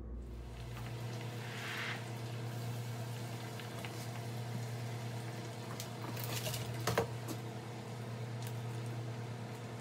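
Breaded zucchini sticks frying in a pot of hot oil, a steady bubbling sizzle over a low constant hum. A few sharp clicks come about six to seven seconds in, as fried pieces are lifted out onto a plate.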